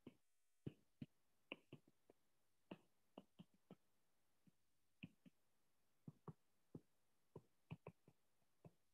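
Faint, irregular light clicks of a stylus tip tapping on a tablet's glass screen as words are handwritten.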